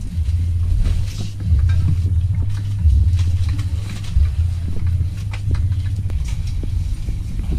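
Uneven low rumble of camera handling noise from a handheld camera being carried and swung about, with a few faint clicks and knocks.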